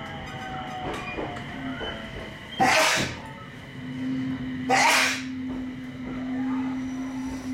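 Aoimori Railway 703 series electric train pulling to a stop, heard from inside the carriage: a faint falling whine and low rumble at first, then two short, loud bursts of hissing air from the train's pneumatics about two seconds apart, with a steady low hum setting in after the first.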